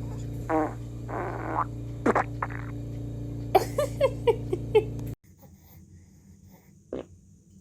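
Baby farting: a few short pitched toots, then a quick run of about six little pops. A steady low hum lies under them until it cuts off about five seconds in, and one more short toot follows near the end.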